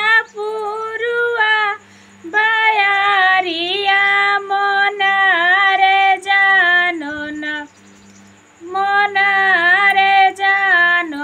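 A woman singing a devotional folk song to Kali Maiya unaccompanied, drawing out long held vowels that bend and glide in pitch between lines. The phrases break off briefly for breaths, with the longest pause about eight seconds in.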